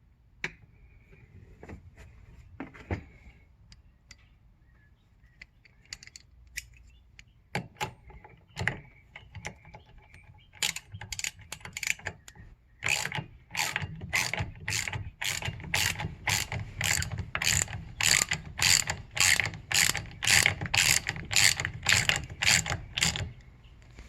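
Socket ratchet tightening the steering hub's locking nut: a few scattered clicks and knocks, then from about ten seconds in a steady run of ratcheting strokes, about two a second, that stops shortly before the end.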